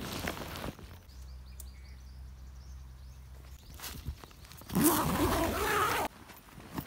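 A tent's mesh-door zipper being pulled, a rough rasp lasting about a second and a half that stops abruptly, after a faint low hum.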